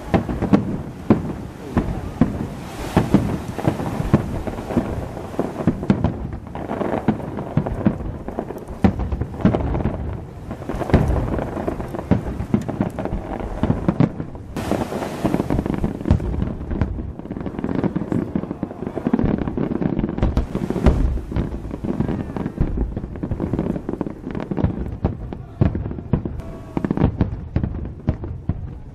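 Aerial fireworks display: many shells bursting in quick succession, the booms overlapping with no pause between them.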